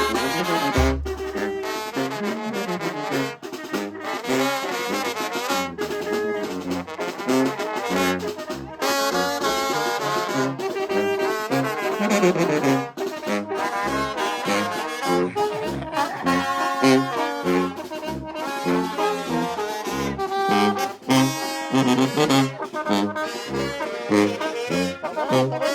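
Live brass band music: trumpets, trombones and saxophone playing a dance tune over a regular bass beat.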